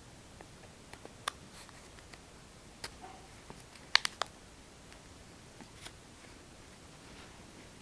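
Plastic pry tools working around the edge of a second-generation iPod Touch's screen, giving scattered small clicks and snaps, with a quick run of three about four seconds in, the loudest.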